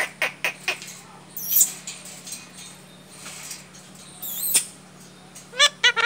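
Caged ring-necked parakeet calling: a few sharp clicks at first, two high sweeping screeches, then a quick run of short chirps near the end.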